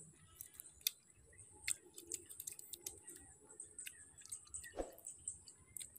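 A person chewing a mouthful of chicken, with soft wet mouth smacks and clicks at an irregular pace.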